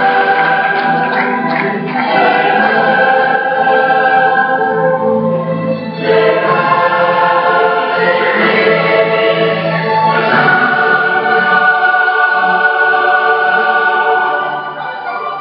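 Choral music: a choir singing long held chords that change about every four seconds, growing quieter near the end.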